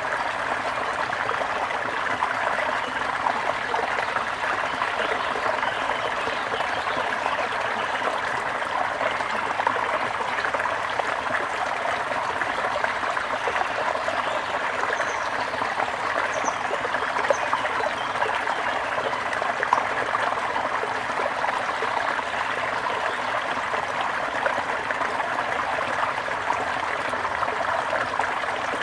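Small stream trickling and babbling steadily over stones. A few faint high bird chirps come in a little past halfway.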